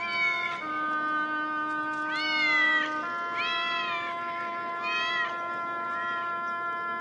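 A cat meowing about five times in short calls that rise and fall in pitch, over held chords of background music.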